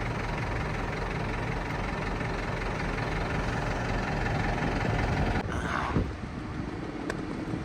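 Crane engine running steadily at idle, a low, even rumble. The sound shifts abruptly about five and a half seconds in.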